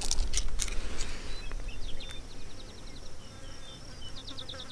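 Insects chirping in the grass: trains of quick, evenly spaced, high-pitched pulses, with a few sharp clicks near the start and low wind rumble underneath.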